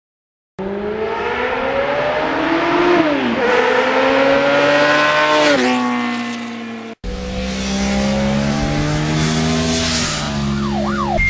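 Motorcycle engine accelerating hard: its pitch climbs, drops at a gear change about three seconds in, and climbs again. After an abrupt cut about seven seconds in, the engine is heard again at a steadier pitch.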